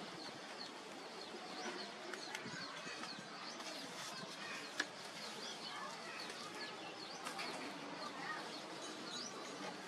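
Small birds chirping over a low background hiss, many short quick chirps. A single sharp tap comes about halfway through.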